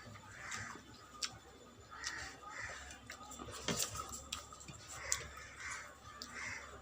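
Eating sounds of a person eating fish curry and rice: short wet mouth noises recurring every half second or so, with a few sharp smacks.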